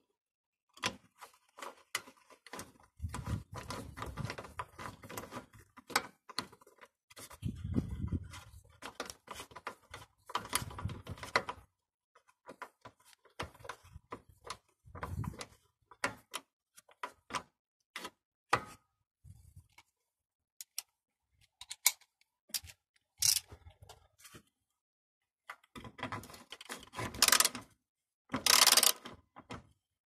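Ratchet wrench with a 12 mm socket tightening a bolt against sheet metal: irregular bursts of ratchet clicking and small metal knocks, the loudest bursts near the end.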